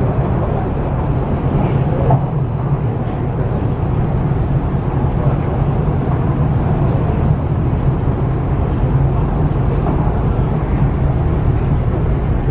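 MTR East Rail Line R-train, a Hyundai Rotem electric multiple unit, running along the track, heard from inside the car: a steady low rumble of wheels and running gear with no let-up.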